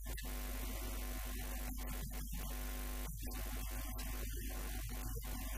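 Steady electrical mains hum, low and constant with its overtones, over a background hiss in the recording.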